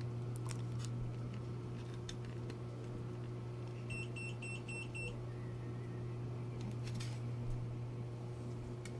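A steady low electrical hum, with a few light clicks as wire plugs are pushed onto the connectors of a speaker amplifier board. A quick run of five short, high electronic beeps comes about four seconds in.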